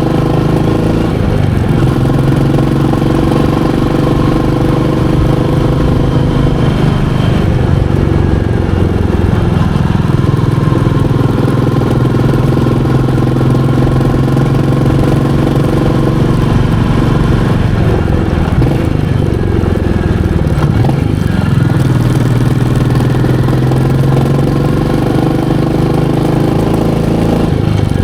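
Royal Enfield Meteor 350's single-cylinder engine and exhaust running on the move. The engine note is mostly steady but drops and climbs back twice, about a quarter of the way in and again past the middle, as the rider slows and picks up speed.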